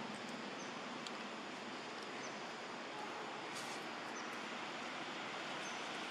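Steady outdoor forest ambience: an even hiss with a few faint, short high chirps every second or two.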